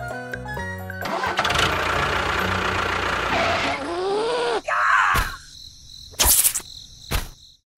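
A short run of music, then an engine-like running sound with rapid fine pulsing for about three and a half seconds, followed by a few short sharp bursts near the end.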